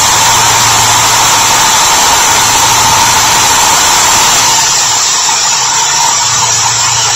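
Electric drill running steadily with a continuous whine as it bores into the base of a Hot Wheels die-cast car to take the base off. The level drops slightly about four and a half seconds in.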